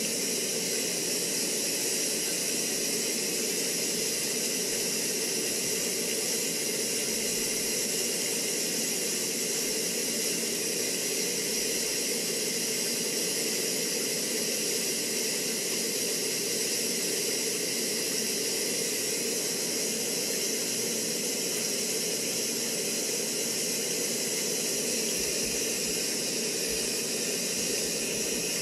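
Waterfall, a steady rushing hiss of falling water that stays even throughout.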